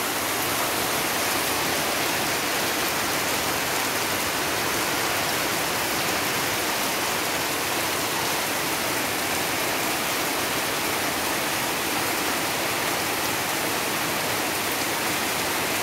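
Heavy monsoon rain falling steadily, with runoff pouring off the edge of a roof.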